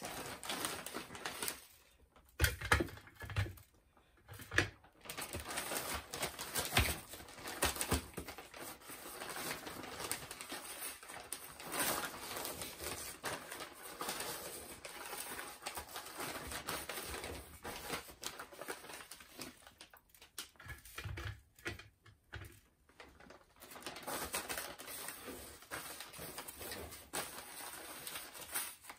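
Plastic zip-top bag rustling and crinkling as raw chicken legs are worked around in seasoned breadcrumbs, with irregular handling noises, loudest in the first few seconds.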